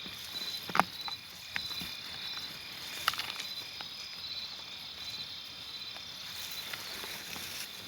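Insects trilling in a steady high-pitched chorus with a repeating pulsed chirp. A few sharp clicks and rustles sound over it, the loudest about a second in and again about three seconds in.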